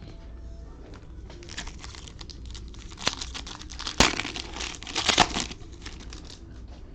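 Plastic trading-card pack wrapper being torn open and crinkled, the crinkling coming in spurts through the middle with one sharp snap about four seconds in.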